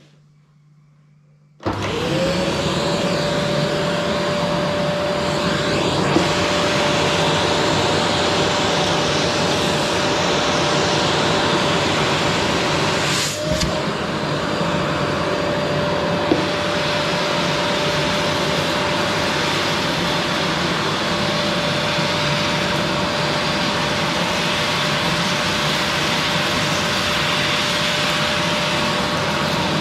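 Qilive vacuum cleaner switched on about two seconds in, its motor spinning up quickly to a steady whine over a loud rush of air. About halfway there is a brief dip in the sound with a knock.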